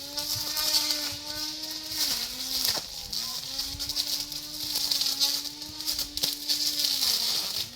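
Brush cutter engine running at high revs with a steady whine, its pitch dipping briefly about two seconds in and again near the end.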